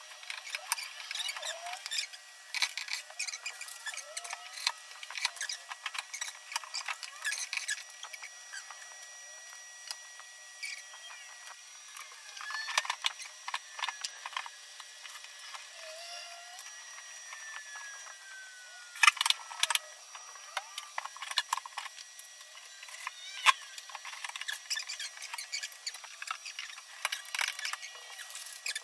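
Drawers being fitted into a wardrobe: a string of light clicks and knocks from the drawers and their runners, with a few falling squeaks and a louder knock about two-thirds of the way through. The sound is thin, with no low end.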